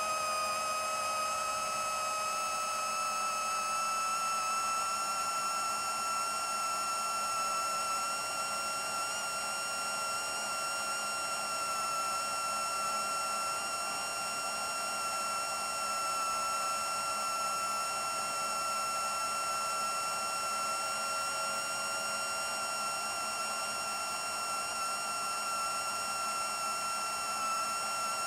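Steady high-pitched whine of an FPV quadcopter's brushless motors (Racerstar 2514) and 7-inch propellers in cruising flight, rising slightly in pitch near the start and then holding even.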